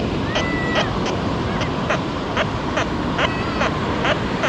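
A bird calling over and over in harsh notes, about two a second, over a steady wash of surf and wind. A short, clear, steady tone sounds about half a second in.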